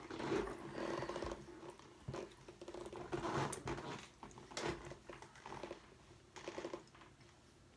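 A person chewing a large mouthful of sandwich close to the microphone: irregular wet mouth noises and clicks that die down near the end.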